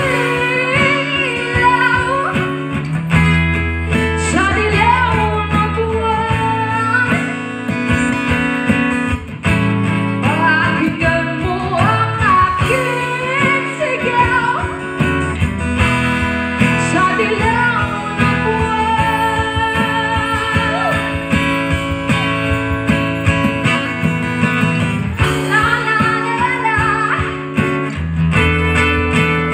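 Live song: a woman singing into a microphone, accompanied by a guitar, with sustained low bass notes under the voice.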